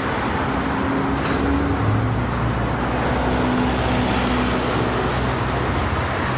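A bus engine running steadily over traffic noise: a low, even rumble with a faint wavering hum. It starts and cuts off abruptly, like an added vehicle sound effect.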